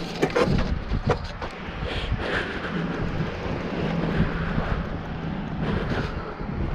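Electric mountain bike under way: wind buffeting the microphone and tyre rumble over a steady low hum from the e-bike motor, with a few knocks and rattles in the first second or so.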